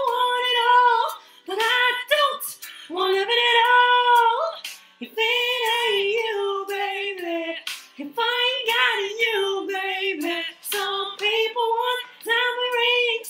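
A woman singing a melody in short phrases, with brief breaks between them.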